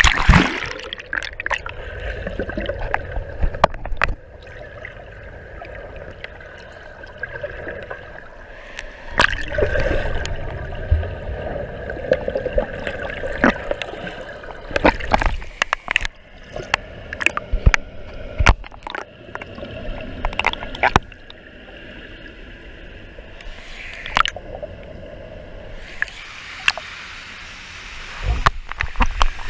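Pool water gurgling and sloshing around an action camera as it moves under and along the water surface, with frequent sharp knocks and clicks. Near the end a louder, brighter rush of flowing water sets in.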